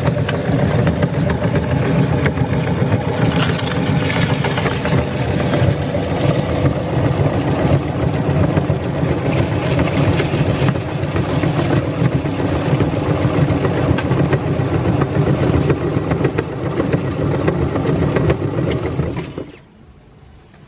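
Electric meat grinder running steadily, its motor hum under a dense crackle as it grinds crisp snack chips. It stops abruptly about nineteen seconds in.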